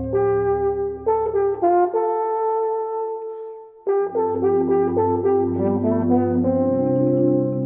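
Chamber music led by a French horn: held notes over low sustained tones, breaking off briefly about halfway through and then resuming.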